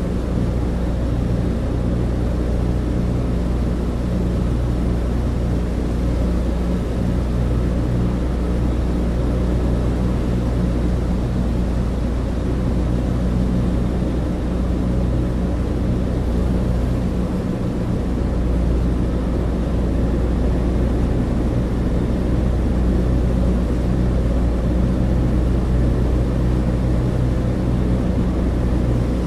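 Cabin drone inside a Douglas DC-3, the steady low hum of its twin radial piston engines and propellers, even and unchanging throughout.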